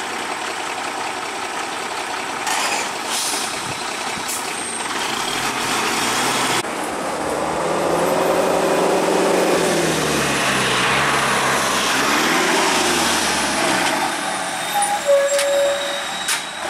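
Heavy diesel engines of a lorry and then a bus running at idle. Partway through, the bus engine revs up and down a couple of times. A few short beeps come near the end.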